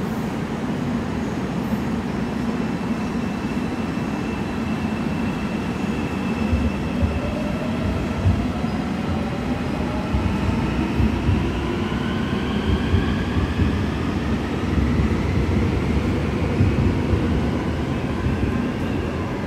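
An AREX Airport Railroad electric train pulling out of an underground platform. From about six seconds in, its traction motors whine, rising in pitch as it gathers speed, over a steady rumble of wheels on rail.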